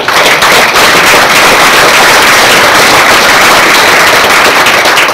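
Audience applauding, a dense, steady clatter of many hands clapping that begins to die away near the end.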